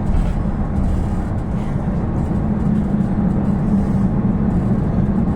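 Passenger train running, heard from on board: a steady low rumble.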